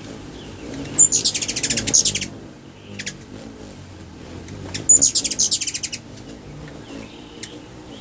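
Hummingbirds chattering at a nectar feeder: two bursts of rapid, high, buzzy chips about a second long each, one about a second in and one around the middle, each opening with a sharp high note, as the birds chase one another.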